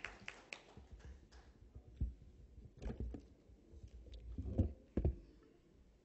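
Scattered hand clapping dying away in the first second or so, followed by a few dull low knocks and bumps, the loudest two about four and a half and five seconds in.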